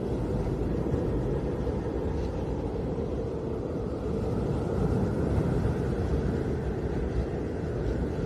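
Snowstorm wind blowing as a steady, deep, rumbling roar, swelling slightly about halfway through.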